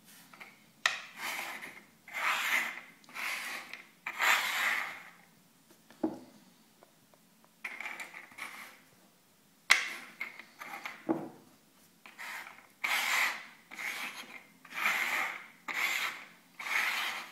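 Walnut shell halves slid and shuffled across a wooden tabletop: a string of short rasping scrapes, each under a second, with a few sharp knocks as shells are set down.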